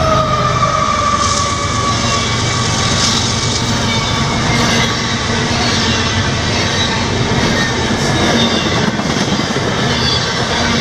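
CSX double-stack intermodal freight cars rolling past, a steady rumble and clatter of steel wheels on rail. A thin whine slides down in pitch over the first two seconds.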